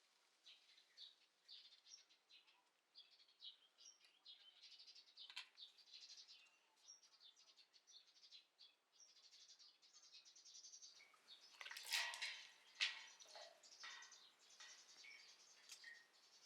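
Faint chirping and twittering of small songbirds, many short calls one after another. About twelve to thirteen seconds in, a few sharp clicks or knocks come through louder than the birds.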